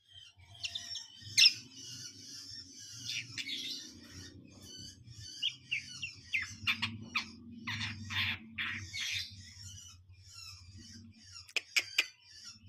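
Long-tailed shrike (cendet) singing a rapid, varied string of harsh chatters, chirps and sharp descending whistles over a low steady hum.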